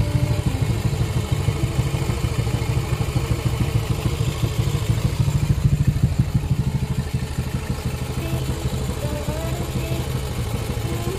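Yamaha Mio i 125 scooter's single-cylinder four-stroke engine, bored out to 59 mm, idling steadily.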